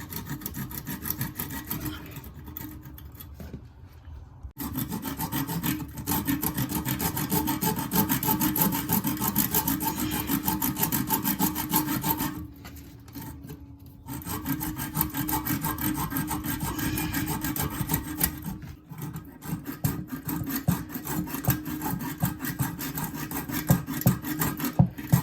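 Hand-held hacksaw blade sawing back and forth through a rusted toilet flange bolt in quick, short strokes, stopping a few times for a moment before starting again.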